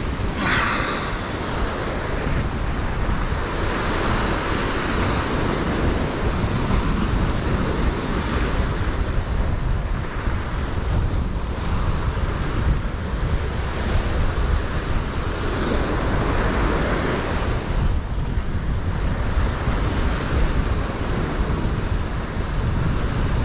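Ocean surf washing in, swelling and easing every few seconds, with wind rumbling on the microphone.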